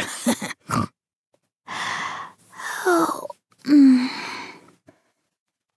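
A woman's voice performing a cartoon character's exercise effort: three breathy huffs and grunts about a second apart, the second sliding down in pitch, the last opening with a short low grunt.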